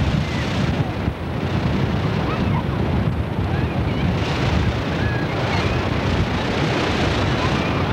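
Surf washing through the shallows with wind rumbling on the microphone, a steady noise throughout; faint distant voices over the top.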